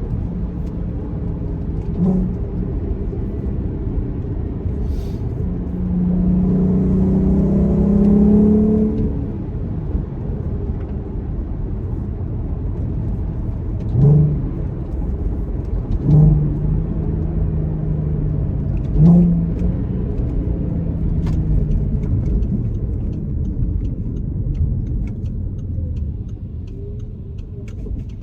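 Audi TT's 3.2 VR6 engine pulling steadily at low revs in sixth gear over road rumble, firing evenly with no misfire on its new coil packs. The engine note swells and rises about six to nine seconds in, with a few brief swells later.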